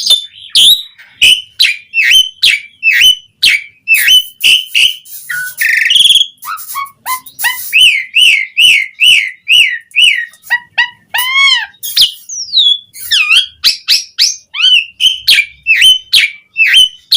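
Asian pied starling (jalak suren) singing in full, busy 'gacor' song: a fast string of loud whistled notes sliding up and down, broken by sharp clicks and a harsh rasping passage about four seconds in.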